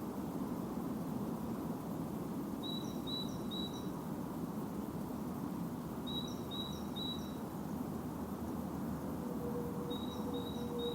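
A songbird singing a short phrase of three quick high notes, repeated about every three and a half seconds, over a steady low background rumble. A faint steady hum joins near the end.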